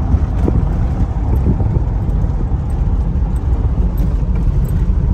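Inside a moving Toyota HiAce van's cabin: a steady low rumble of engine and road noise while driving.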